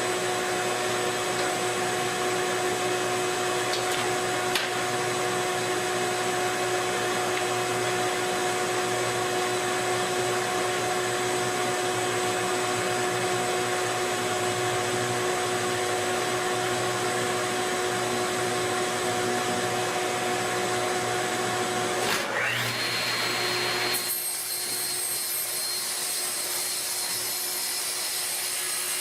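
An electric power tool's motor running at a steady whine. Near the end it gives way to a rising whine and then a different, higher-pitched motor sound.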